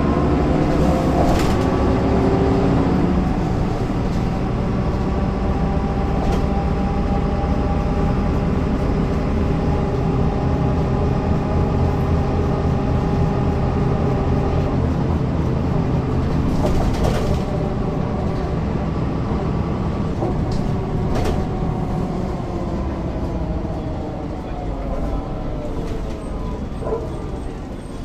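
MAN NL202 city bus's D08 diesel engine running as the bus drives, with a whining tone that falls in pitch over the first few seconds and then runs steadily. A few sharp clicks sound about a second in and again later.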